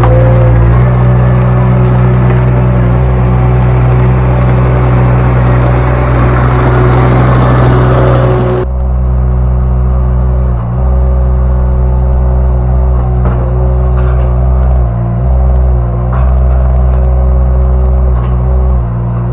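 Derette V1000 mini skid steer engine running steadily at working speed while the machine works the rock bucket. A rushing noise on top of it cuts off suddenly a little before halfway. After that the engine sound dips briefly a few times.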